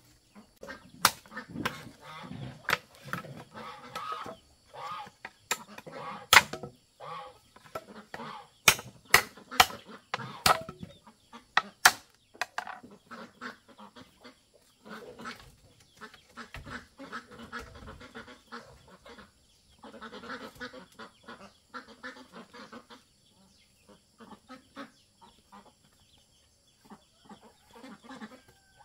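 Machete chopping and knocking on bamboo poles in sharp, irregular strikes, most of them in the first half and a few again near the end, with farm fowl calling and honking in between.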